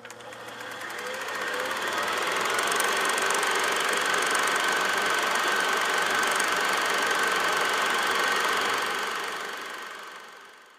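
A steady mechanical running sound, like a machine or engine, fading in over about two seconds and fading out near the end.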